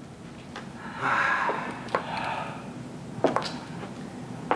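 A long breathy exhale, like a heavy sigh, then a few short, sharp knocks.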